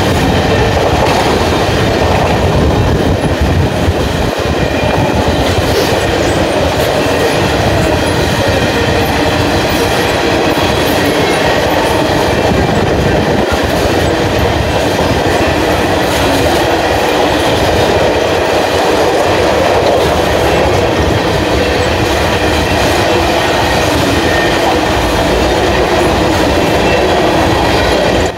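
Freight train of loaded coal hopper cars rolling past close by: a steady, loud rumble of steel wheels on the rails that does not let up.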